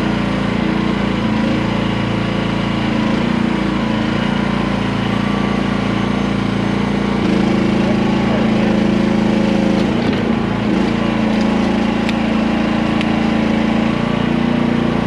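Small gasoline engine of a QH13R micro mini excavator running steadily and loud. Its pitch shifts and it gets slightly louder about seven seconds in.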